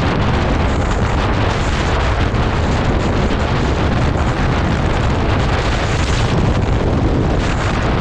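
Heavy wind noise buffeting the microphone on a motorcycle at highway speed: a loud, steady, deep rumble and rush with no let-up.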